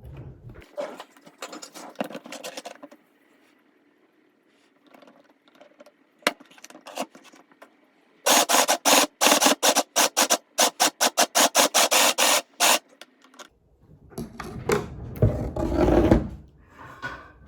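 Electric mini sewing machine stitching: a run of fast, even clacks, about five a second, lasting about four seconds from roughly eight seconds in. Rustling before, and louder rubbing and handling noise near the end.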